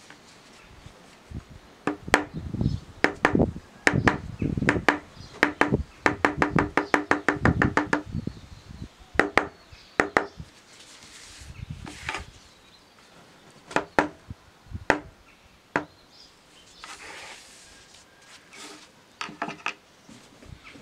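Rubber mallet striking a metal leather stamping tool held on leather: repeated sharp taps, with a quick run of about five taps a second a few seconds in, then single strikes at uneven intervals.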